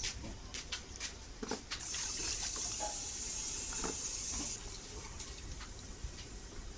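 Tap water running into a sink for about two and a half seconds, starting about two seconds in and then shut off. Light clicks and knocks of kitchen handling come before it and after it.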